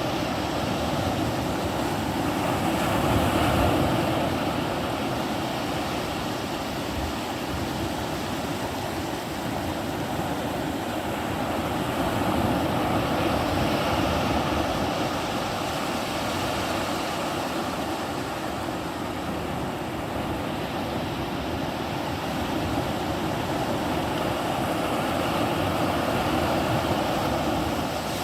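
Atlantic ocean surf washing on the shore: a steady rush of breaking waves that swells louder and eases back every ten seconds or so.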